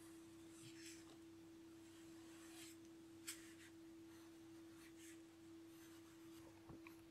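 Faint pencil strokes scratching on paper, a few short scratches with a sharper one about three seconds in, over a steady low hum.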